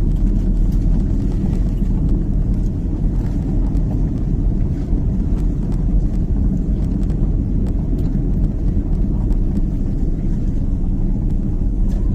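Low, steady rumble of a slowly moving vehicle, engine and road noise, with a few faint ticks.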